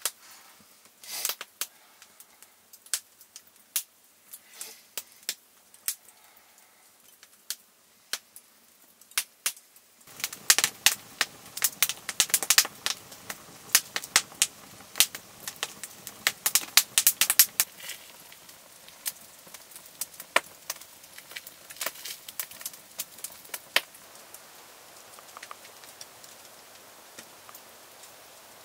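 Log campfire crackling, with sharp irregular pops. The pops come sparsely at first, grow dense over a soft hiss from about ten seconds in, then thin out toward the end.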